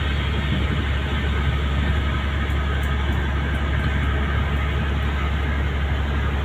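Ship's engine running steadily underway: a constant low drone with an even rushing noise above it.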